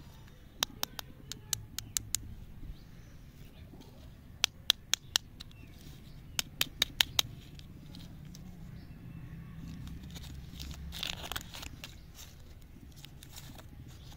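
Plastic candy wrapper handled and torn open by hand: three quick runs of sharp crinkling clicks, then a short tearing rustle about eleven seconds in.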